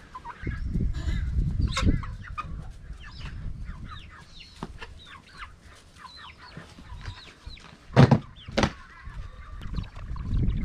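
A flock of silkie chickens clucking and peeping while they feed, with wind rumbling on the microphone. Two sharp knocks sound close together near the end.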